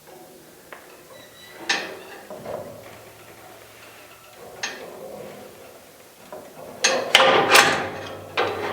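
Hand work on a steel bandsaw blade with a C-clamp and vise: a few scattered knocks and clicks, then, about seven seconds in, a dense run of metal clattering and scraping.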